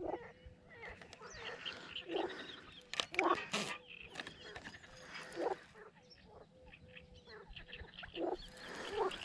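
Frogs croaking from the pond: short, low, grunting calls repeating irregularly every second or two, with faint higher chirping above them.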